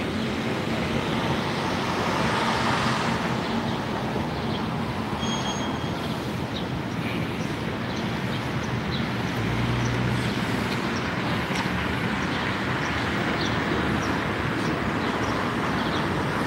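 Steady city street traffic noise, with a low rumble swelling briefly about ten seconds in.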